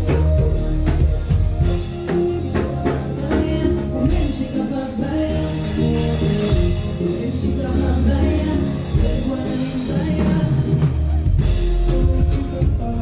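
Live band music with drums, bass and a singer's voice, played loud.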